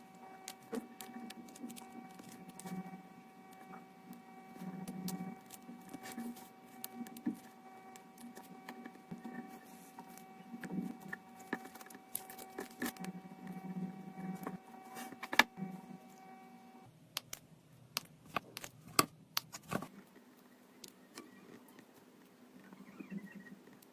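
Scattered light clicks and taps of small hand tools at a repair bench, over a steady electrical hum that cuts off abruptly about two-thirds of the way through.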